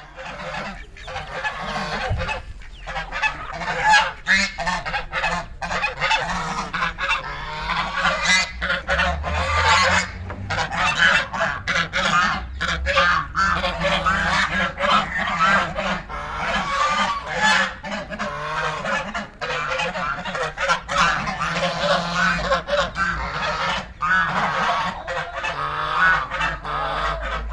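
A flock of domestic ducks calling. Many short calls overlap with no pause throughout.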